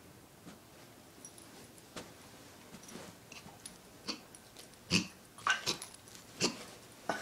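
A dog hiccuping: a string of short, sharp hics at uneven gaps, faint at first and louder from about five seconds in.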